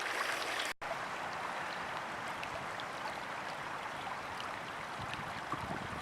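Spring meltwater stream running: a steady rush of water with small splashes, broken by a momentary dropout about a second in.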